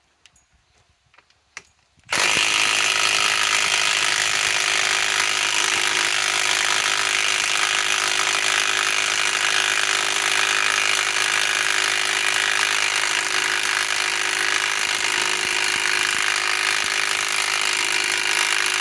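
Milwaukee M12 Fuel Stubby Gen 1 cordless 3/8-inch impact wrench hammering at full output as it tries to drive a bolt into a wooden log. It starts about two seconds in and hammers steadily without letting up.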